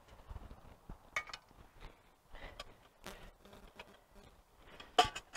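Gear being handled at a backpack: rustling and scattered light clinks and knocks. A single sharp clack near the end is the loudest sound.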